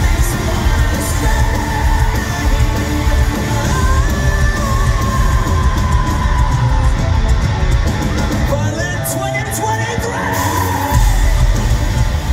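Live rock band playing loud in a large hall, a singer singing over electric guitars, bass and drums. Near the end the low end drops away for a couple of seconds, then the full band comes back in hard.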